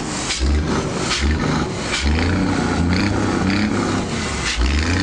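Scania 124 truck's straight-six diesel being revved in short repeated blips through its vertical exhaust stack, with a longer rev whose pitch rises and falls between about two and four seconds in.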